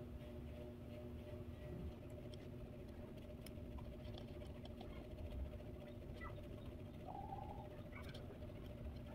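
Quiet room tone with a steady low hum, and faint small clicks and taps from a gel nail-polish brush and bottle being handled while a top coat is brushed on. A brief faint squeak about seven seconds in.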